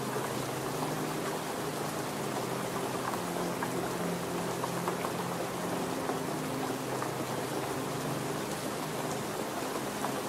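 Heavy rain falling steadily, a dense even hiss with no break.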